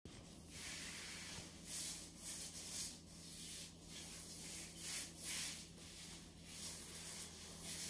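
A small child's hands swishing and rubbing through spilled white powder on a laminate floor: faint, irregular soft swishes, about one or two a second.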